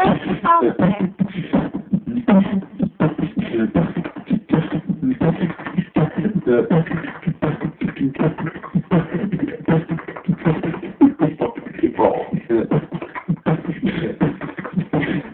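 Beatboxing into handheld microphones: a fast, unbroken stream of mouth-made drum hits and clicks, mixed with hummed voice tones.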